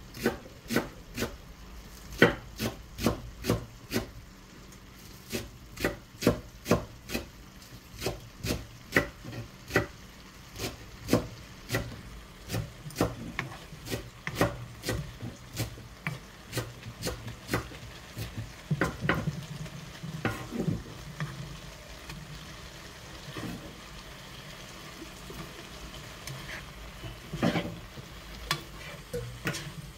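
Wooden spatula knocking and scraping against a nonstick frying pan while stir-frying green peppers, about two knocks a second at first, fewer and more spread out in the second half.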